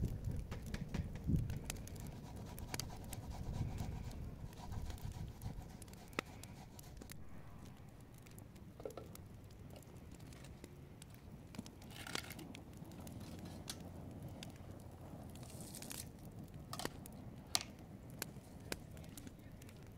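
Light, scattered clicks and taps of a knife cutting vegetables by hand over plastic bowls.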